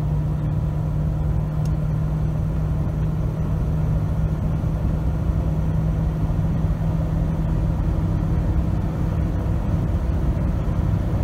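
Steady low road and engine drone inside a moving car's cabin, with a constant hum under it.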